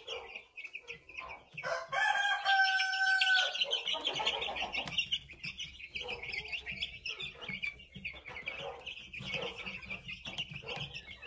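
A flock of young chickens peeping continuously in rapid high chirps. About two seconds in, a louder held call that sounds like a rooster crowing lasts about a second and a half.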